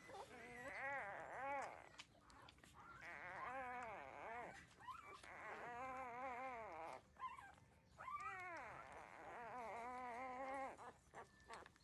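Thirteen-day-old puppies whining: a run of long, wavering, high whines, one after another with short breaks.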